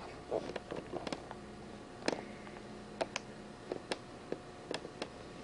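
Scattered light clicks and taps, about a dozen at irregular intervals, over a faint steady room hum.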